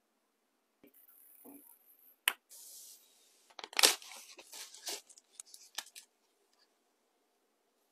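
Phone case packaging being handled and opened: a run of paper and plastic rustling, crinkling and tearing with several sharp clicks, loudest about four seconds in.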